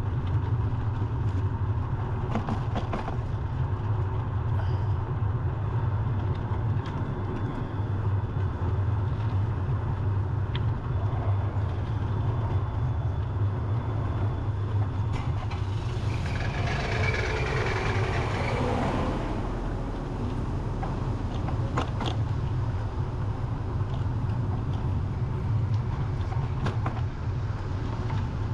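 Steady wind rumble on a GoPro action camera's microphone during a bicycle ride, with small scattered clicks and rattles. A passing vehicle's hiss swells and fades a little over halfway through.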